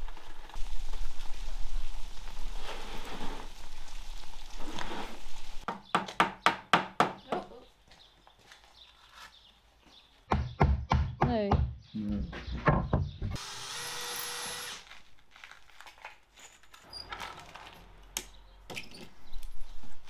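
Steady rain at first, then wooden knocks, hammer taps and scraping as a wooden chalkboard frame is worked on with a hammer.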